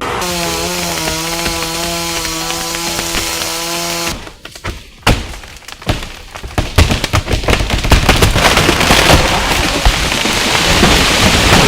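A chainsaw runs at a steady pitch for about four seconds. After a short break, a dense crackling of splintering, breaking wood builds and grows louder, like a tree cracking and coming down.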